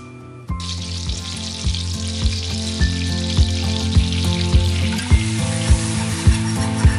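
Butter sizzling in a hot pan as flour is spooned in and whisked for a roux, starting about half a second in. Background music with a steady beat plays underneath.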